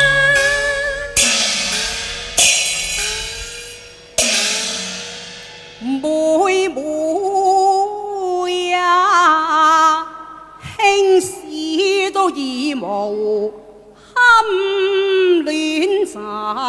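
Cantonese opera music: over the accompanying instruments come three sharp percussion crashes, cymbals and gong, each ringing away; then, about six seconds in, a woman begins singing a Cantonese opera line with a wavering, ornamented voice, pausing briefly a couple of times.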